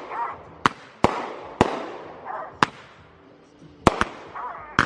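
Consumer fireworks going off: about seven sharp bangs at irregular spacing, two in quick succession near the end, with fainter hiss and crackle between them.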